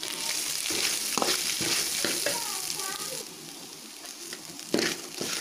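Grated coconut frying and sizzling in hot oil in a metal kadai, stirred with a steel spoon that clicks and scrapes against the pan several times. The sizzling eases about three seconds in.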